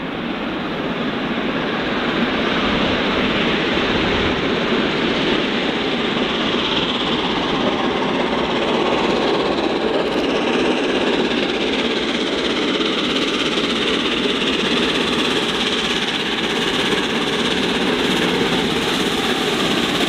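Steam locomotive 60163 Tornado, a three-cylinder A1 Pacific, working hard as it climbs a 1 in 89 gradient at the head of a train of coaches. Its loud exhaust builds over the first couple of seconds and then holds steady as it approaches.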